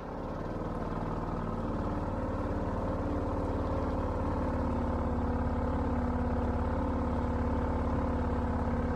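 Boat motor running under way, building up over the first second or two and then holding a steady drone.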